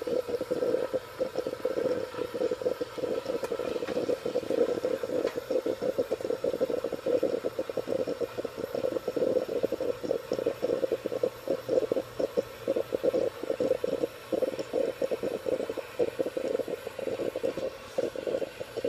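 Small espresso machine brewing, coffee spluttering into a glass carafe as a steady, unevenly flickering rush.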